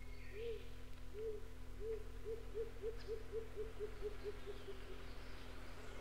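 Red-crowned pigeon (rose-crowned fruit dove) calling: a series of low hoo notes, slow at first, then speeding up and fading away in a bouncing-ball pattern. A steady low tape hum runs underneath.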